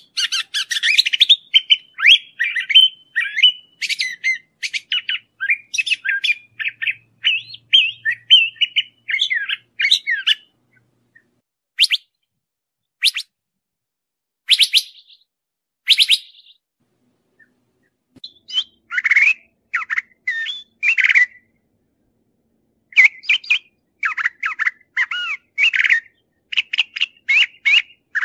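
A thrasher (huitlacoche) singing: a long, fast run of varied whistled and harsh notes for the first ten seconds or so, then scattered single notes, then short bursts of phrases separated by pauses of a second or two.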